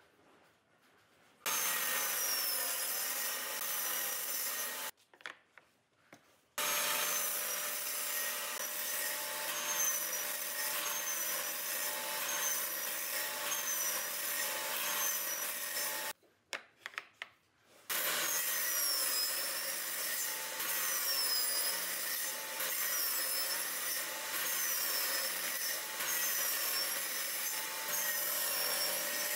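Table saw running and crosscutting a board into small triangular wedges on a sled jig, the blade's whine dipping with each cut about every second and a half. The sawing comes in three stretches broken by short quiet gaps.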